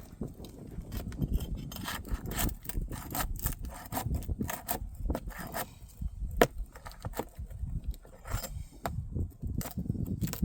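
Scraping and sharp clicks of a tool working under old roof shingles to pry out roofing nails, in an irregular run of strokes.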